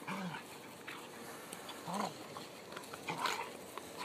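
Vizsla puppy and Weimaraner play-fighting, giving short dog vocalisations: a low call near the start, another about two seconds in, and a louder, sharper one about three seconds in.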